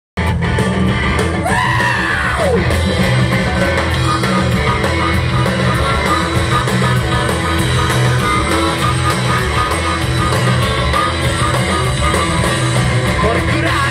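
Rock band playing live through a club PA: drums, electric guitar and a loud lead voice singing or shouting over them.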